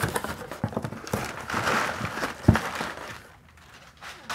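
Cardboard box being opened by hand: flaps pulled apart with irregular rustling and small knocks, a longer scraping rustle about one and a half seconds in, and a dull thump about two and a half seconds in, after which it goes quiet.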